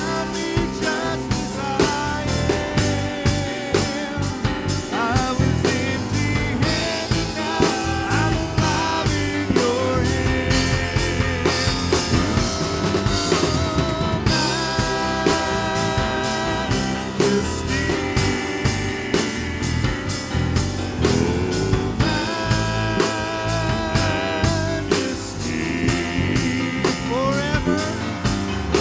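Live church worship band playing a praise song, with a drum kit keeping a steady beat under sustained pitched instrumental lines.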